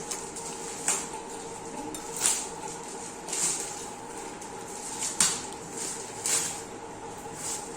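Packaging wrap crinkling and rustling in short, irregular bursts, about one a second, as a boxed soundbar is unwrapped by hand. A faint steady hum runs underneath.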